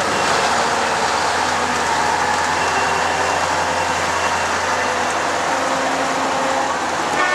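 Heavy Soviet KrAZ truck running steadily as it drives slowly past, towing a loaded low-loader trailer, with a low engine hum under loud running noise. A horn sounds right at the end.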